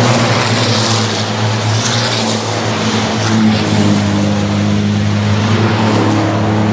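A pack of European Truck Racing Championship race trucks, big turbodiesel engines, running at speed on the circuit in a loud, steady drone.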